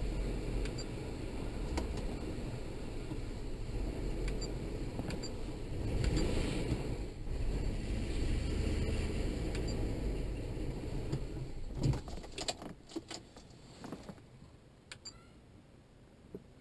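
Steady low rumble in the cabin of a 2003 Ford Expedition, which dies away about twelve seconds in. It is followed by a handful of sharp clicks and rattles.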